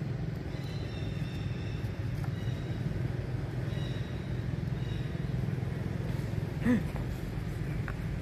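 A steady low rumble of background noise, with a short pitched call that bends down in pitch about six and a half seconds in.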